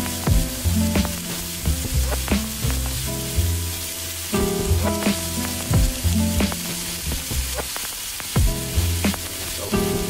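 Sliced onion, mushrooms and tofu frying in a pan with a steady sizzle, under background music with a beat and a bass line.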